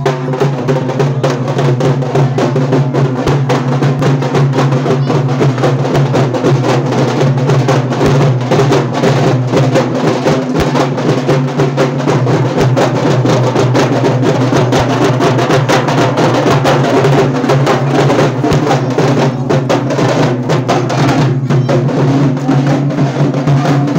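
Loud, rapid drumming for procession music, with a steady low drone held underneath.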